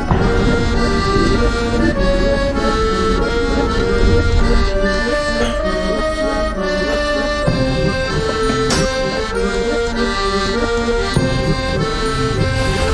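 Background music: an accordion playing a traditional-style tune, with sustained chords and a moving melody.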